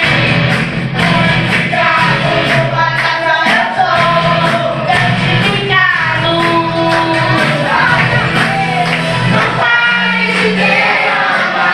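Group of children singing a gospel worship song together over a band accompaniment with a steady beat.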